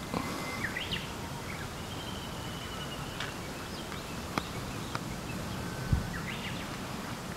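Several short bird calls, quick sweeping chirps and one held whistle, over a steady outdoor hiss, with a few sharp clicks and a low thump about six seconds in.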